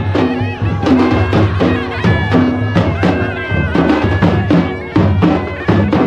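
Dhol barrel drums beating a steady rhythm, with a shrill wind instrument playing a melody of held, sliding notes over them, and voices of a crowd.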